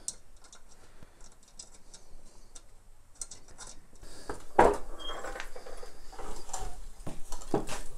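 Light metal clicks, then a series of sharp knocks and clunks as a steel riding-mower deck is shifted about and handled, the loudest knock about halfway through.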